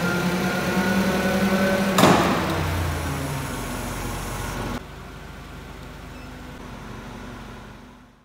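Mitsubishi forklift running with a steady hum and whine, with one sharp clunk about two seconds in. About five seconds in the sound drops suddenly to a quieter hum, which fades out near the end.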